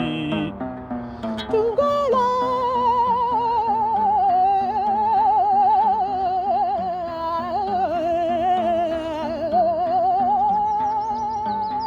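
Music: a voice holds one long note with a wide, wavering vibrato from about two seconds in, over a repeating low accompaniment of stepped notes.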